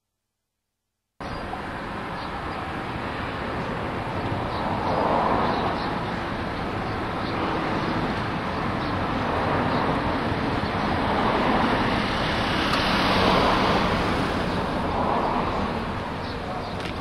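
Steady rushing outdoor noise that starts abruptly about a second in and swells and fades every few seconds, without a clear pitch.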